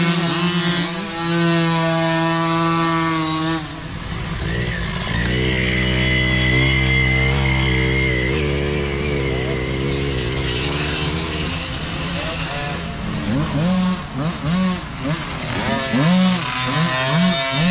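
Small micro dirt bike engines running as the bikes ride past on a dirt trail, several at once. About four seconds in the note drops lower and wavers. In the last part come repeated quick revs, the pitch rising and falling with the throttle.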